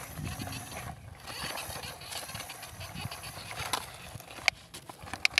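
Scattered light clicks and knocks of a plastic toy excavator being handled on dirt, over a faint outdoor background, with a few sharper clicks near the end.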